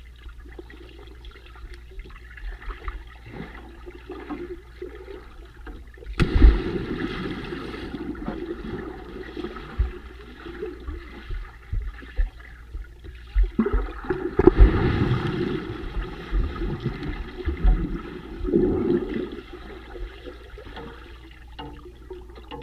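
Muffled rush and gurgle of water and bubbles heard by a camera under the water, as swimmers plunge and kick and churn up bubble clouds. Two loud surges of bubbling start suddenly about six and fourteen seconds in, with a smaller one near nineteen seconds, each fading back to a low steady rush.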